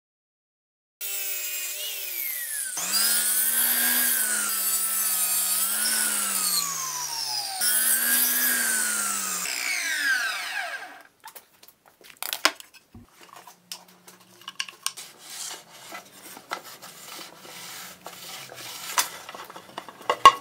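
Table saw running and cutting wood, its pitch rising and sagging under the load for several seconds before the sound dies away. It is followed by scattered light knocks and clicks of wood being handled.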